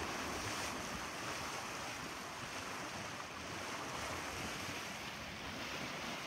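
Steady wash of sea water around a sailboat under way, waves and water rushing along the hull, with wind on the microphone; an even hiss.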